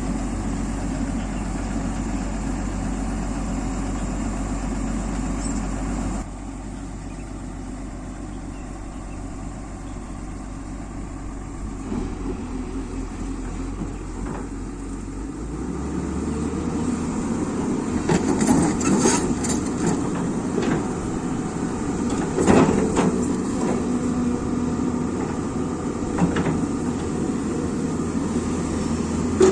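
Excavator's diesel engine running. It eases off about six seconds in and works harder again from about halfway, with a few sharp metallic knocks near the end.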